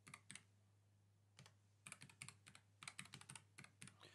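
Faint computer keyboard typing: a few keystrokes at the start, a pause of about a second, then a quick run of keystrokes.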